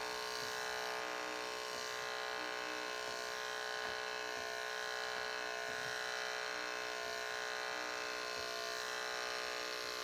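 Andis electric animal clippers running with a steady buzz, trimming wool on an Angora rabbit's belly.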